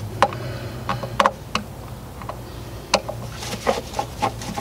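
Small screws being backed out of a Pentair IntelliFlo pump's cover panel with a Phillips screwdriver: scattered light clicks and taps, with a quicker run of ticks near the end, over a faint low hum.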